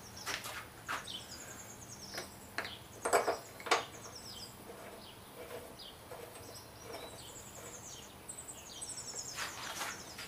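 Small birds chirping in short, high, descending trills, repeated throughout. A few sharp clicks and knocks come through, the loudest two close together about three seconds in.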